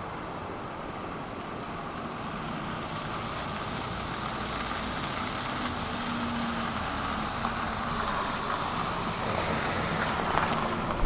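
A bus approaching, its engine and tyre noise growing steadily louder, with a faint low hum about halfway through.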